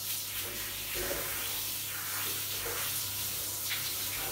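Handheld shower head spraying water over a dog's coat and the shower floor, a steady hiss.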